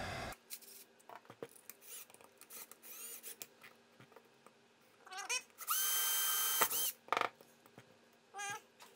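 Cordless drill's motor spun up with the trigger, running as a steady whine for about a second and winding down, then a short second burst near the end. Light clicks of the drill and plastic parts being handled.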